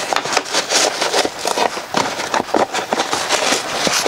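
Close rustling and clattering as things on a shelf are rummaged through and handled: a dense, irregular run of crackles and light knocks.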